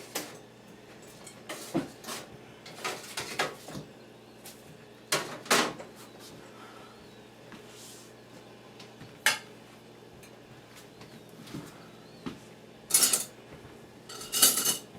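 Dishes and serving utensils clinking and clattering, in scattered knocks a second or more apart, the loudest two near the end.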